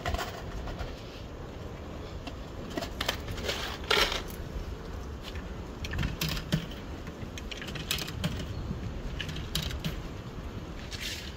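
Scattered metallic clicks and clinks as the controls of a self-service chemical-toilet emptying and cleaning station are worked, the sharpest about four seconds in, over a steady low outdoor rumble.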